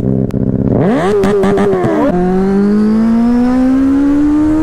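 Motorcycle engine idling, revved briefly about a second in, then pulling away in gear from about two seconds in, its note rising steadily as it accelerates.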